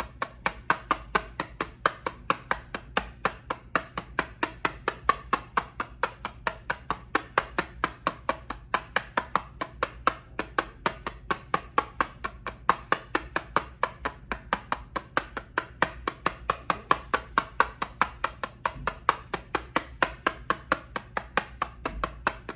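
Quick, even tapping on an eyeshadow palette, about four sharp taps a second.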